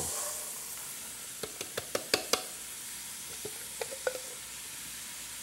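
Chopped onion going into hot melted margarine in a cooking pot, sizzling steadily. About a second and a half in there is a quick run of sharp light knocks, then a few fainter taps.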